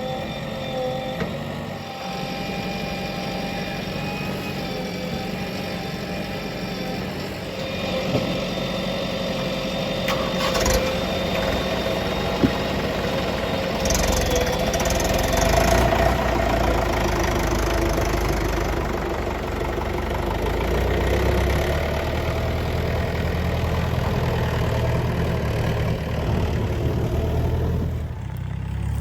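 Heavy diesel engine running steadily, the load on it rising a few times.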